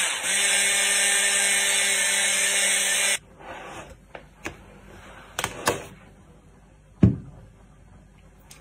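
Electric hand blender with a whisk attachment running with a steady motor hum, whipping a white mixture in a plastic jug; it switches off abruptly about three seconds in. A few light knocks and clicks follow, the loudest a single thump near seven seconds.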